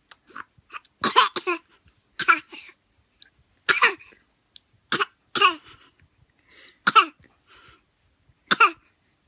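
A woman and a five-month-old baby coughing in turns, a series of short coughs a second or two apart, the baby imitating the mother's cough.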